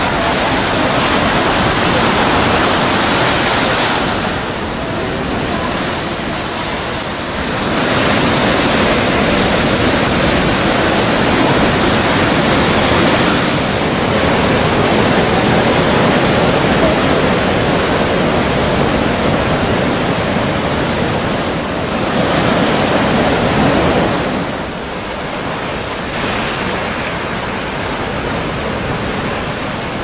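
Strong wind over a rough sea with surf: a loud, steady rush that eases for a few seconds twice.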